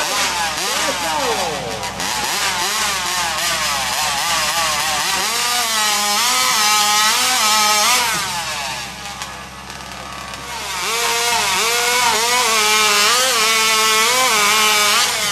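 Two-stroke chainsaw at full throttle cutting through a squared timber, its pitch repeatedly sagging and climbing as the chain bites and frees. The engine falls away about two-thirds of the way in, then a saw revs back up a second or two later and cuts again.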